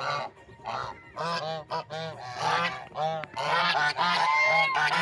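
Geese honking: a quick run of short honks, about ten in all, with several birds calling over one another from about three and a half seconds in.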